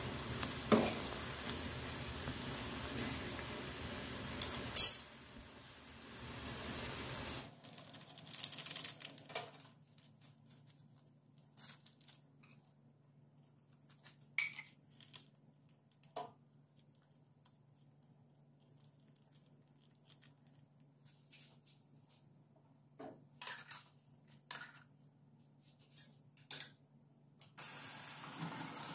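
Instant noodles boiling in a pot: a steady hiss with a few sharp clicks of chopsticks against the pot, the loudest about five seconds in. Then near silence for some twenty seconds, broken by scattered soft taps and rustles as seasonings are put onto a plate, until a steady hiss starts again near the end.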